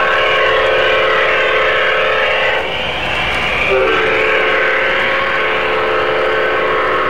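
Digitally recorded diesel horn played by the MTH ProtoSound system in an O-gauge Burlington Northern Santa Fe Dash 9 model locomotive. It sounds a multi-note chord in two long blasts, with a short break about three seconds in.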